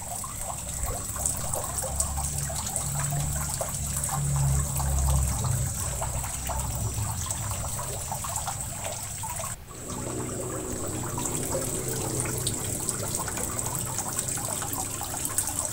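Cooking oil poured into a non-stick wok, trickling in. The sound cuts off briefly a little past halfway, then a similar steady noise carries on.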